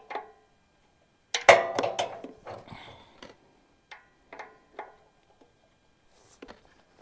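A metal wrench clicking and clanking on the tight float-bowl drain bolt of a Champion 3500 generator's carburetor as it is worked loose. A loud metallic clank with brief ringing comes about a second and a half in, followed by scattered lighter clicks.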